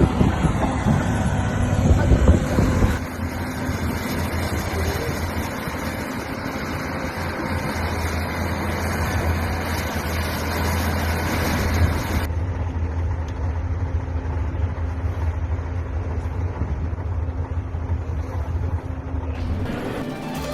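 A vehicle engine running steadily under a hiss of noise. The sound changes abruptly about three seconds in and again about twelve seconds in.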